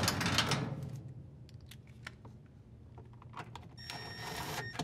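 Rustling and small metallic clicks as a screw and a grounding-wire ring connector are handled and fitted by hand. Near the end, a cordless impact driver runs for under a second, driving the screw.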